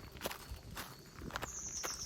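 Footsteps crunching through dry fallen autumn leaves, about three steps in an even walking rhythm. Near the end a short, high bird note sounds over them.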